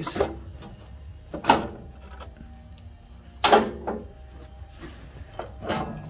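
Four sharp clunks and knocks spread over the few seconds as the metal casing of an Elektra Verve espresso machine is worked free and lifted off.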